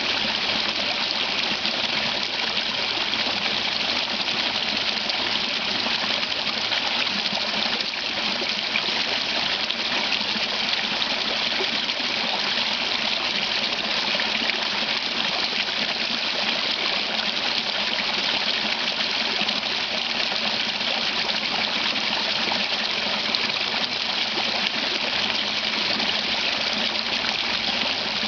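Water rushing and splashing steadily over a small creek waterfall.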